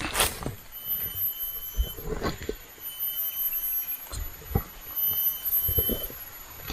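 High, thin steady whine of forest insects, with a second tone near 3 kHz that comes and goes every second or two. Scattered knocks and rustles come from camping gear being handled.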